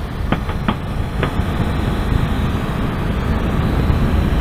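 Wind and road noise rushing over the microphone of a motorcycle riding at about 40 mph, with the bike's engine running under it and a few faint clicks in the first second or so.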